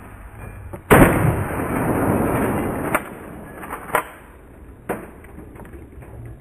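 A Remington 870 pump-action shotgun fires once about a second in, followed by about two seconds of dense crackling noise. Three sharp clicks or knocks follow, about a second apart.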